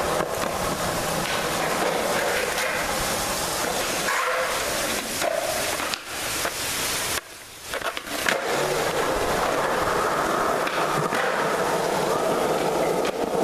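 Skateboard wheels rolling on smooth concrete, with a few sharp board clacks and a short lull about seven seconds in.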